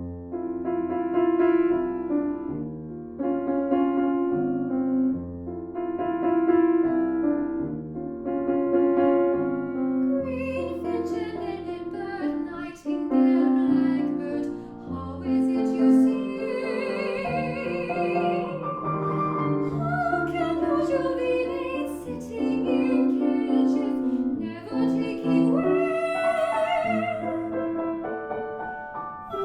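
Piano plays a chordal introduction, then a female voice begins singing over it about ten seconds in, in a classical, operatic style with vibrato.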